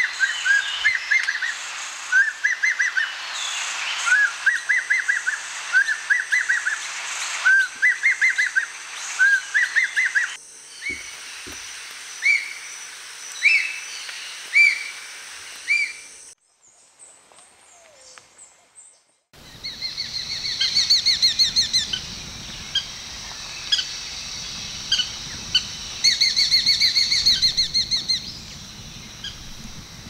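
Raptor calls. For the first ten seconds an Ornate Hawk-eagle repeats whistled phrases, each a quick run of three to five rising notes. Then come slower single whistles about a second apart, a brief lull, and rapid high chattering runs twice in the last third.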